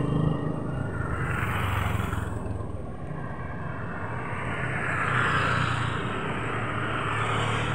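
Motorcycle tricycle's engine running as it rides along a street, with wind and road noise that rise and fall.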